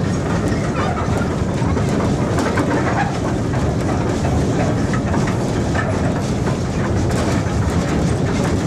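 Small wood-fired steam locomotive running along the track, heard from aboard its log-loaded tender: a steady rumble with scattered rattling of the moving train.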